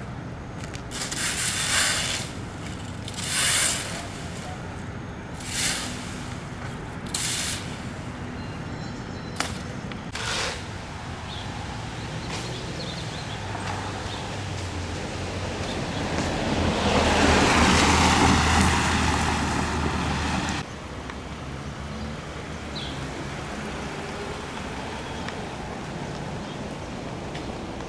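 Street traffic: a few short hissing bursts in the first ten seconds, then a vehicle going by, louder for about four seconds with a low rumble, before the sound cuts off abruptly.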